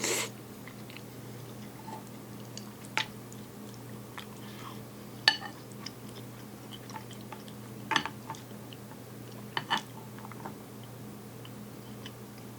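A person eating quietly, chewing, with a few short sharp clicks over a steady low hum.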